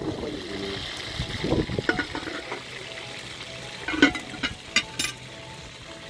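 Liquid sloshing as a metal spoon stirs fish in a pot of water, followed by a few sharp clinks and knocks about four to five seconds in, the first the loudest.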